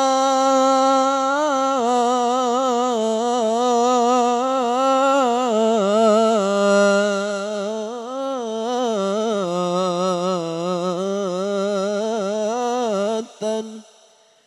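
A man's solo voice singing one long, ornamented melismatic phrase of an Arabic sholawat in the Quran-recitation (qari) style. It starts on a held note, slides lower with wavering turns and settles on a lower held note, breaking off about 13 seconds in.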